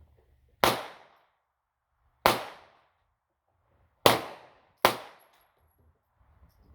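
Four gunshots, each a sharp crack with a short decaying ring; the last two come less than a second apart.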